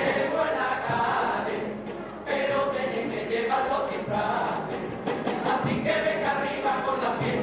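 A chirigota, a Cádiz carnival comic chorus, singing together as a group in phrases with brief breaks between them.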